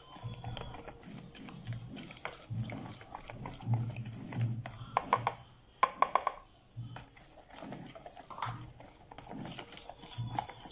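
A plastic spoon stirring thick, wet paste in a plastic bowl: repeated scraping strokes with sharp clicks and knocks of the spoon against the bowl.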